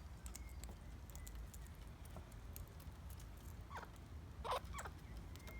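Australian king parrots: scattered light clicks and taps, with a few short calls that sweep in pitch between about four and five seconds in.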